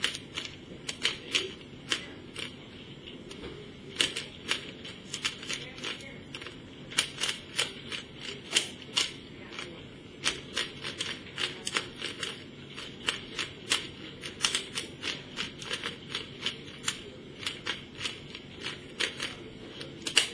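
Rubik's Cube being twisted quickly by hand: irregular runs of sharp plastic clicks, a few a second, as the layers are turned in the last moves of a solve.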